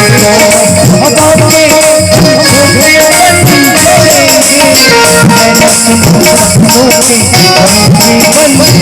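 Instrumental interlude of Indian folk-style film music: a wavering melody over a steady tabla rhythm, with the low drum strokes bending in pitch.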